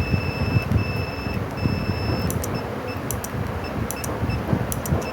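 Motorcycle alarm unit's buzzer beeping in answer to the remote's unlock: three longer high beeps, then several short ones. Sharp clicks and a steady low rumble are heard under the beeps.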